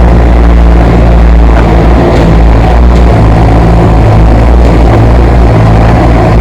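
Backhoe loader engine running steadily, a loud deep drone that holds an even pace throughout.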